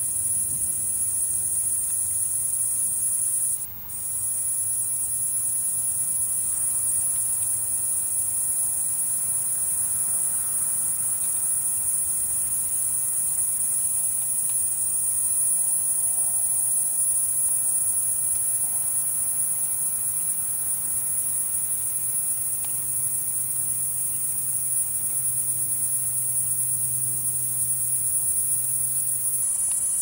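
Cicada buzzing: a steady, high-pitched drone that breaks off for a moment a little under four seconds in, then carries on.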